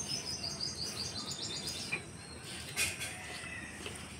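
A bird sings a rapid trill of repeated high notes that falls slightly in pitch and stops just under two seconds in. There is one short sharp noise a little before three seconds in, over a faint steady background hiss.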